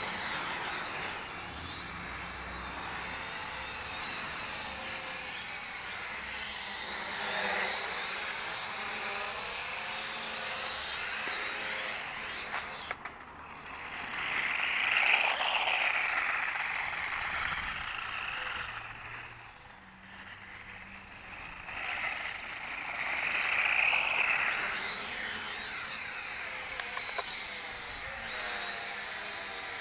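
Small electric motors of a Feng Niu FN668 toy flying car/quadcopter giving a thin, high whine. The whine swells louder about halfway through and again later on, with brief dips in between.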